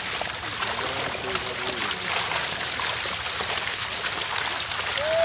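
A mass of small fish thrashing and splashing in shallow water in a net, a continuous dense patter of small splashes.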